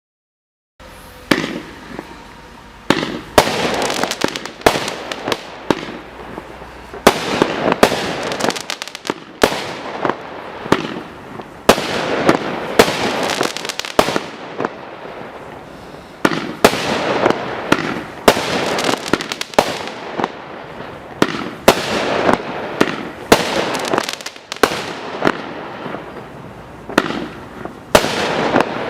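Zeus Fireworks 'Juke Box' firework cake firing, starting about a second in: a long run of loud bangs, one every second or two, over near-continuous crackling.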